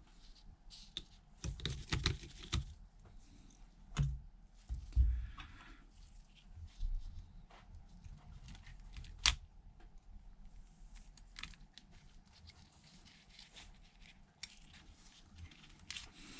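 Small, irregular clicks and taps of a precision screwdriver and tweezers on tiny screws and phone parts while the iPhone's logic board screws are taken out and set down, with a few louder knocks about two, four, five and nine seconds in.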